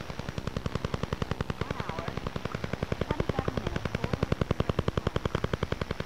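Shortwave radio recording of the Soviet Duga over-the-horizon radar signal, the 'Russian woodpecker': a rapid, even tapping of about ten pulses a second over radio hiss.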